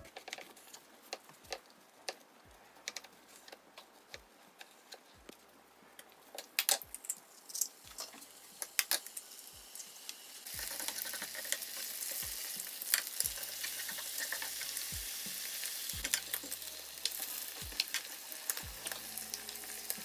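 Knife cutting ham on a wooden chopping board, with scattered taps and clicks. About ten seconds in, a steady sizzling begins as ham slices and eggs fry in oil in a hot grill pan.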